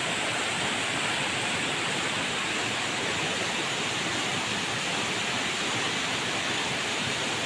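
Steady rush of falling water: an even hiss with no breaks or changes.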